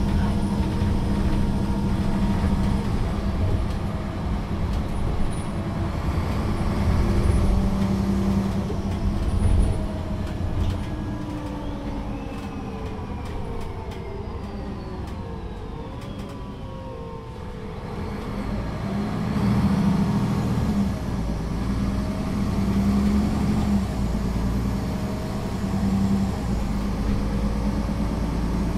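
Inside a 2011 Solaris Urbino III 12 city bus under way: the diesel engine and drivetrain run with a steady low tone. The pitch falls and the sound eases off from about ten seconds in, then rises again as the bus picks up speed a few seconds later.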